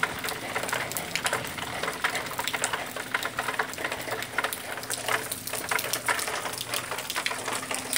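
Steady rain falling on a concrete driveway and lawn, a dense crackling patter of drops, with a faint steady low hum underneath.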